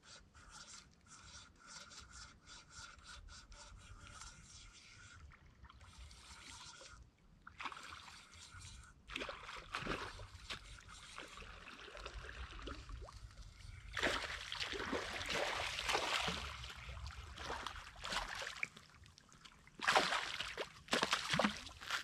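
Fishing reel being cranked, a quick run of clicks with a faint whir. From about halfway on, a hooked fish splashes at the water's surface in repeated bursts, loudest near the end.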